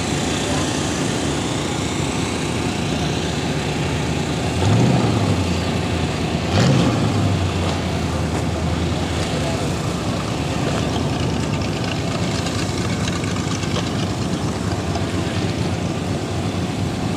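A vehicle engine running under a steady background noise, swelling louder twice, about five and seven seconds in.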